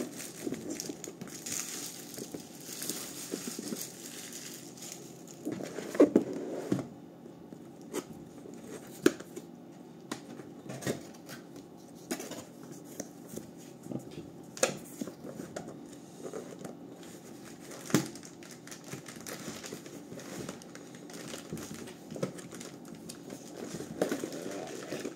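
A computer power supply's cardboard box being handled and opened, its packaging rustling and crinkling, with scattered knocks and taps of the box against the table; the sharpest come about six seconds in and near eighteen seconds.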